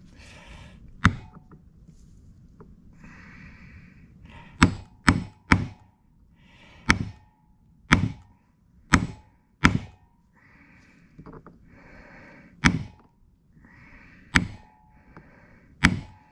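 A hammer striking a 5/16 punch set on the dome of a carburetor Welch plug, about eleven sharp metallic taps at uneven intervals, some with a short ring. The blows flatten the plug's dome so that it spreads and seals in its bore.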